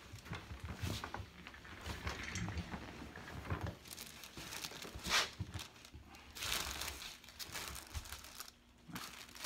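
Crinkling and rustling of the table covering and clothing as a patient turns over from face down to face up on a chiropractic table, with a few soft knocks of the body shifting; the rustle is loudest about five seconds in.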